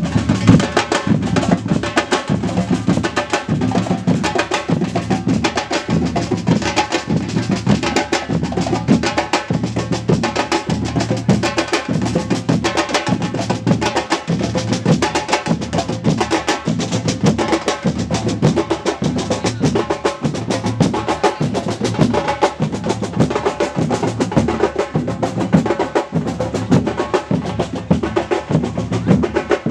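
Drums and percussion playing a steady, busy rhythm, with heavy low beats about twice a second and quick sharp strokes between them.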